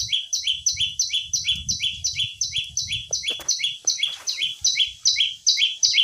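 Prinia (prenjak) call used as a trapping lure: a quick two-part chirp, high then lower, repeated evenly about four to five times a second without a break.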